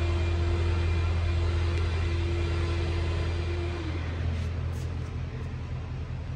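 Steady low rumble of an idling car engine, with a hum that slides down in pitch and fades about four seconds in.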